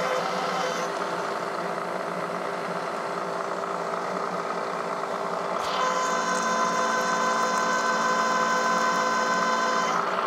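Bridgeport milling machine spindle running as a drill bit cuts into an oiled metal bar, a steady machine hum. About six seconds in, a steadier, higher whine joins in and holds to the end.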